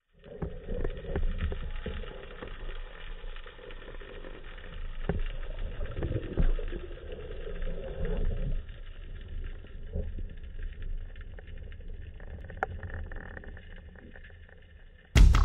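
Muffled underwater sound picked up through a waterproof camera housing: a low rumble of moving water with scattered clicks and crackles. Music comes in abruptly right at the end.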